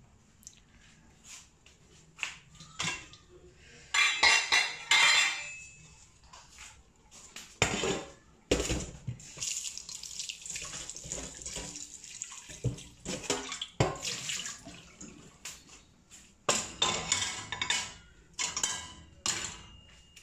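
Tap water running into a stainless-steel cooking pot in a steel sink while a hand swishes it round to rinse it. The metal pot clanks and knocks several times, loudest about four seconds in and again near the end.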